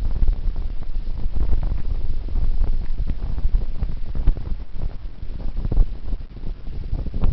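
Strong wind buffeting the microphone: a loud, uneven low rumble that rises and falls with the gusts.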